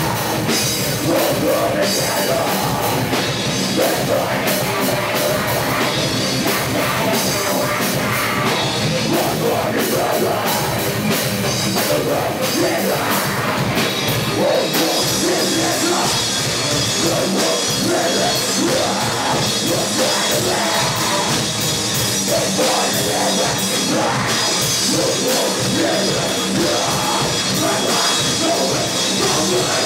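Metalcore band playing live: loud, dense heavy rock with a drum kit, without a break, the top end growing brighter about halfway through.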